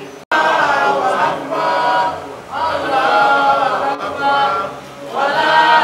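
A group of voices chanting together without instruments, in phrases with short breaks between them, after a brief dropout just after the start.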